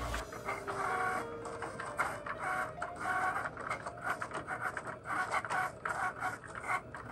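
Cricut cutting machine running a print-then-cut job: its motors whir in short, rapid start-stop bursts as the blade carriage and rollers trace the sticker outlines on the mat.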